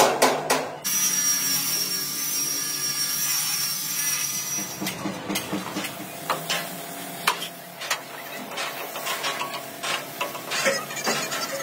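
Work on a steel truck chassis frame: a quick run of metal knocks and clinks, then a steady hiss for about four seconds, then scattered metal taps and clicks.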